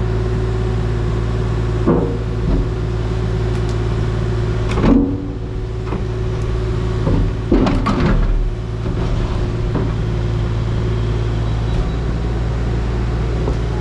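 Excavator's diesel engine running steadily, with several metal clanks and scrapes that are loudest about five and eight seconds in.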